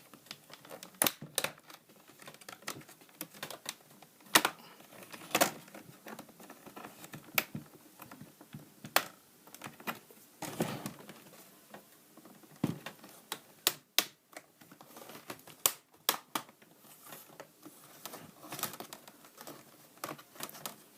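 Plastic snap-in clips of a laptop's front screen bezel popping apart as a pry tool works along the edge: irregular sharp plastic clicks and snaps, a few much louder than the rest, with faint scraping in between.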